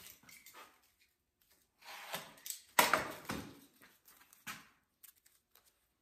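Sticky-backed sandpaper being handled and pulled from its roll: scattered papery rustles, the loudest a sudden tearing sound about three seconds in, then a shorter one and a few light ticks.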